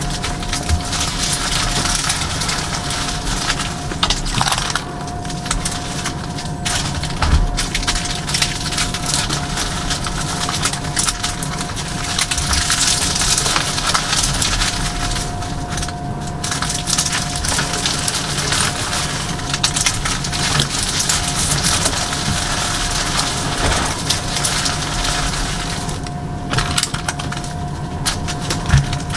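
Hands crushing and squeezing reformed gym chalk: a dense, continuous crunching and crumbling with fine crackles as the crunchy dried chalk breaks apart.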